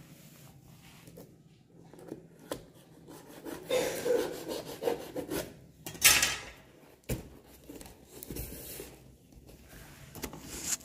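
A parcel being unpacked by hand: irregular rubbing and scraping of packaging, with a sharper rustle about six seconds in and a click about a second later.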